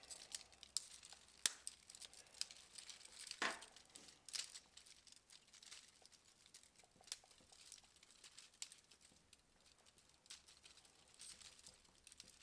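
3D-printed plastic Hoberman sphere links being handled and pressed together: faint rustling and scraping of plastic on plastic, broken by scattered small clicks, a few louder than the rest.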